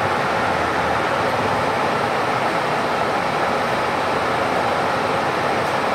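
Steady engine, tyre and road noise heard inside the cabin of a moving city bus as it pulls in toward a bus stop.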